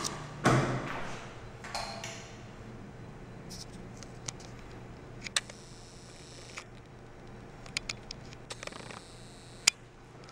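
Quiet room tone with a steady low hum, broken by scattered sharp clicks and short rustling or scuffing noises; the loudest is a brief scuff about half a second in.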